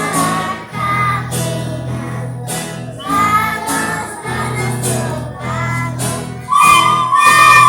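Children singing a song over a steady instrumental accompaniment.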